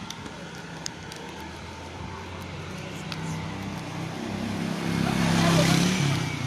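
A motor vehicle's engine running, growing louder as it comes close with a rising rush of tyre and road noise, loudest about five and a half seconds in, then easing off: traffic passing close by.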